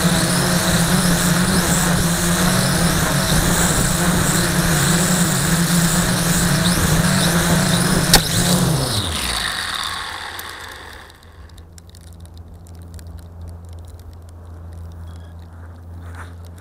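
LaTrax Alias quadcopter's electric motors and propellers buzzing steadily, heard from on board. About halfway through there is a sharp knock as it comes down in the grass, then the motors spin down, falling in pitch and fading to a faint low hum.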